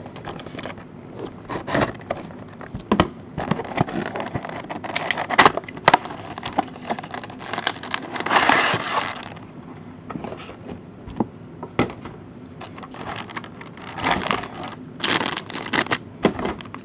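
Rigid clear plastic blister packaging being pried open and handled: irregular crackles, clicks and scrapes, with a longer crinkling rustle about eight seconds in.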